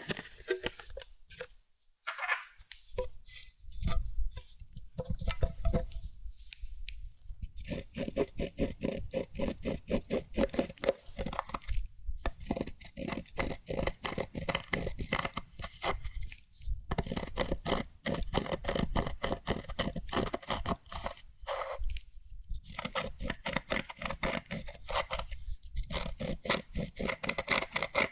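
Clear slime with makeup and glitter mixed in, being squished and folded by hand. It gives runs of quick wet clicks and pops as air pockets burst, broken by a few short pauses.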